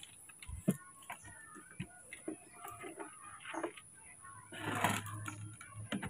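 Light scattered clicks and ticks from a fishing rod and spinning reel being handled, with faint bird chirps. A brief rustle about five seconds in.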